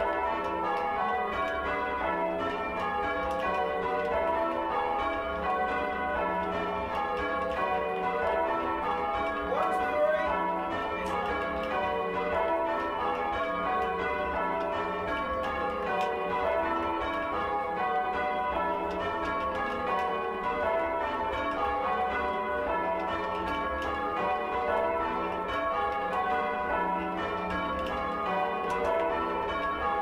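Ring of six church bells with a 16 cwt tenor in E, rung full circle from ropes in steady, continuous rows. Heard from the ringing chamber below the bells; the tenor is heinously oddstruck.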